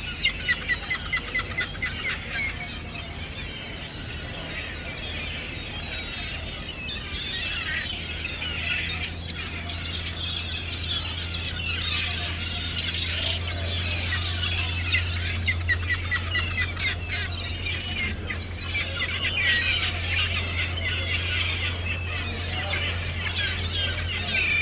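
A flock of gulls calling continuously, many overlapping squawks and cries, with rapid repeated call series in the first two seconds and again about two-thirds of the way through. A steady low hum from a machine runs underneath.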